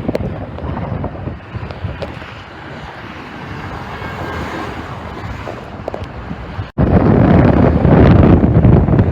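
Wind buffeting the microphone over a steady vehicle and traffic rumble, with no horn clearly heard. After an abrupt cut about seven seconds in, the wind rumble is much louder.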